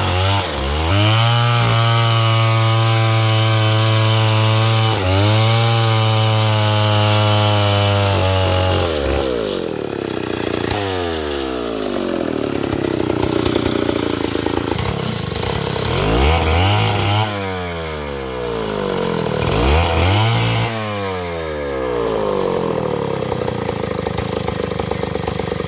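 Stihl chainsaw engine held at a high, steady pitch for about nine seconds, dipping briefly twice. It then drops as the throttle is let off, is blipped twice, rising and falling, and settles to a lower running speed near the end.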